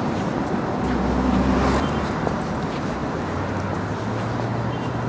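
City street traffic: a steady wash of vehicle noise with a low engine hum that shifts in pitch about four seconds in.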